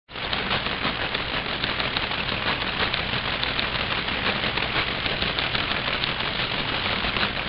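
Steady, dense crackling static with a constant stream of fine clicks and no speech.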